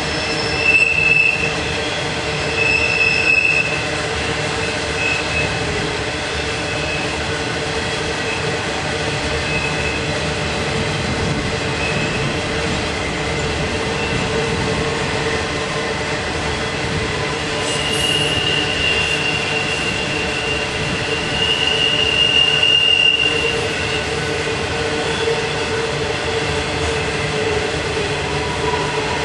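Norfolk Southern intermodal freight train rolling past car after car with a steady rumble. The wheels squeal high-pitched as they grind around the sharp curve: briefly twice near the start, and loudest about three-quarters of the way through.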